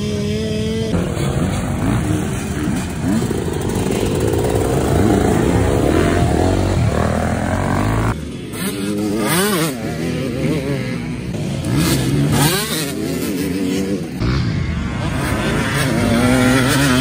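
Motocross bike engines revving up and down as the bikes accelerate and shift around a dirt track. The sound changes abruptly about a second in, again at about eight seconds and at about fourteen seconds.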